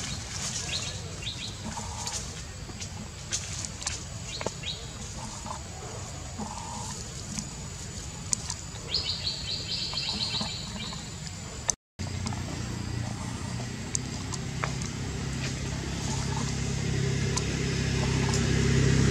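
Outdoor background with scattered clicks and short high-pitched animal chirps, including a quick run of chirps about halfway through. After a brief dropout, a low steady motor hum grows louder toward the end.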